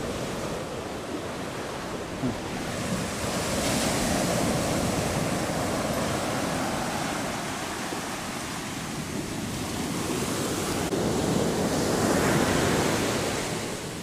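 Ocean surf washing onto a beach in long swells of rushing noise. One wave builds about three to four seconds in, and another swells near the end.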